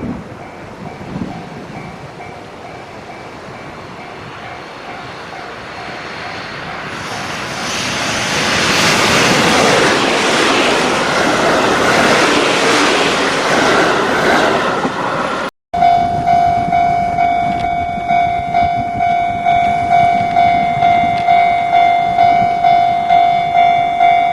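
A train running past a Japanese level crossing, its noise building over several seconds into a loud rush. After a brief dropout, the crossing's warning bell rings loud in a steady, evenly repeating beat.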